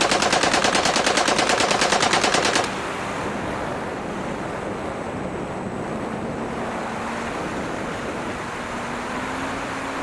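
A rapid burst of simulated machine-gun fire for about the first three seconds. Then a steady rush of airflow over the E-flite P-47's onboard camera, with a faint electric motor and propeller drone whose pitch rises slightly near the end.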